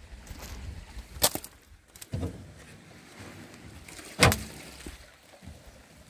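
Footsteps on dry reeds and shore debris: a few sharp crunching knocks, the loudest about four seconds in, over a low steady rumble.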